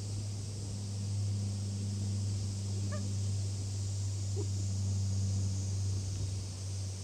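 Domestic cat making a low, steady, pigeon-like cooing rumble while being stroked, with a brief higher chirp about three seconds in. A steady high hiss runs underneath.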